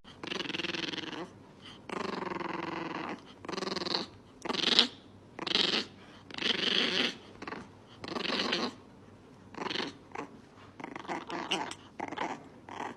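A dog vocalizing in a string of short growly sounds, roughly one a second, some with a clear pitch and some rough.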